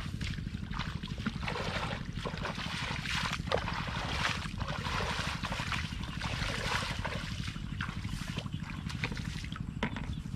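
Shallow muddy floodwater splashing and sloshing in irregular short bursts as bare feet wade and a hand gropes through the flooded grass, over a steady low rumble.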